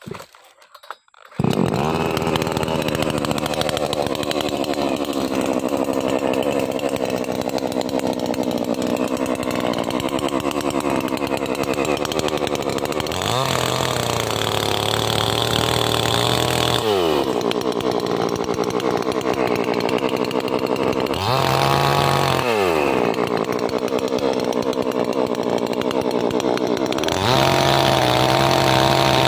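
Two-stroke chainsaw starting up about a second and a half in, then running with the throttle blipped up and down twice before being held at full speed near the end.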